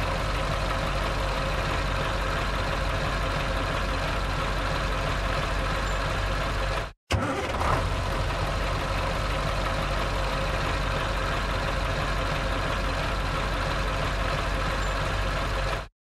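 Truck engine idling steadily. The sound drops out for an instant about seven seconds in and again at the very end, resuming each time with a short louder burst, as the same short recording repeats.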